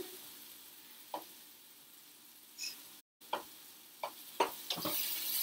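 Sliced mushrooms sizzling in oil in a frying pan as they give up their water, with scattered small pops and clicks. The sizzle is faint at first and grows louder near the end, and the sound drops out for a moment midway.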